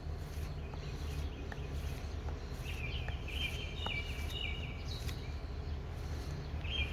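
Songbird singing a repeated, trilled phrase, starting a little before halfway through and again near the end, over a steady low outdoor rumble.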